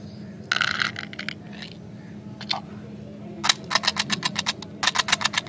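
Small hard candies and plastic candy tubs being handled, giving quick runs of sharp clicks and rattles: a short cluster near the start, a single click in the middle, and two fast runs of clicks in the second half.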